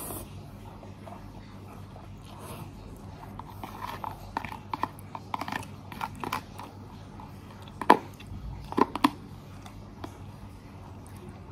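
Close-up eating sounds of a person chewing noodles: irregular wet mouth clicks and smacks, the loudest at about eight and nine seconds in.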